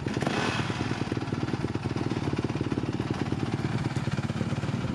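Single-cylinder four-stroke dirt bike engine idling steadily, with an even rapid firing beat.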